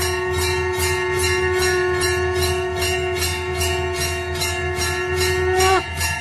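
Background music: a long held melodic note over a steady jingling beat of about three strokes a second. Near the end the note bends downward and breaks off briefly.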